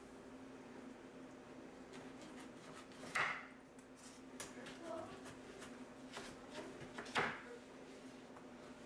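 Quiet kitchen work sounds: scattered light clicks and knocks of utensils, with two louder short clatters about three and seven seconds in, over a steady low hum.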